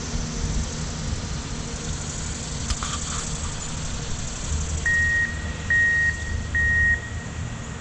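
A vehicle's backup alarm beeping three times, evenly spaced under a second apart, over a steady low rumble.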